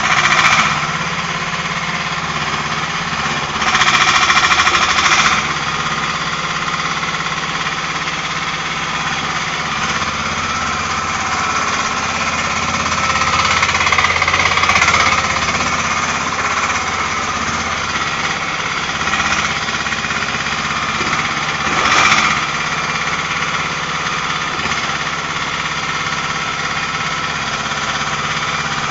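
Small engine of a 1-ton mini excavator running steadily, with a louder surge about four seconds in and another about twenty-two seconds in.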